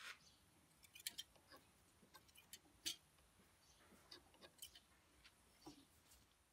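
Faint, irregular light clicks and taps of hand work on the engine, as small metal fittings and safety wire are handled, the loudest click about three seconds in.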